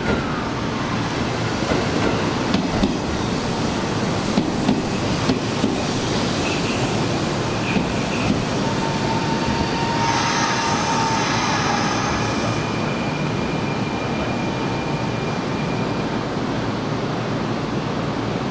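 Electric train running along the station track: steady rumble with wheels clicking over rail joints in the first few seconds, and a brief high squeal of several tones about ten seconds in.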